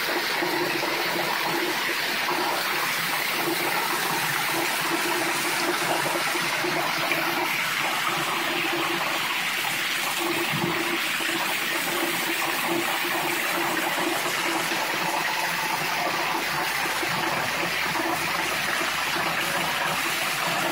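Heavy rain pouring down steadily, splashing onto a paved driveway, with water streaming off a roof edge onto the ground.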